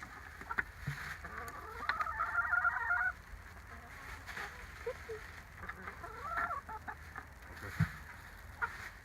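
Chickens clucking. One hen gives a drawn-out call about two seconds in that lasts about a second, with shorter calls a few seconds later and scattered light clicks between them.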